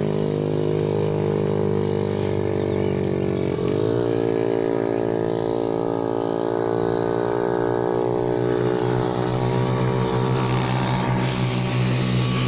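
A motor vehicle engine running steadily, its pitch dipping and then settling on a new steady note about four seconds in, as with a gear change.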